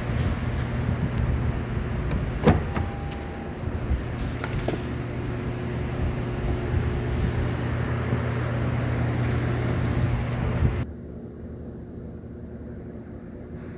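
Lexus IS250's 2.5-litre V6 idling with one cylinder misfiring, put down to a burnt valve. The steady engine hum cuts off suddenly about eleven seconds in, leaving a lower background. There is a single click about two and a half seconds in.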